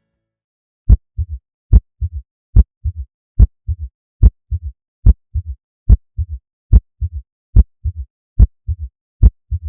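Heartbeat heard through a stethoscope with a third heart sound (S3): a three-beat gallop rhythm repeating a little faster than once a second. Each cycle is a loud sharp first sound followed by two softer, lower thuds close together, the second of them the extra third sound. This is the ventricular gallop the recording illustrates.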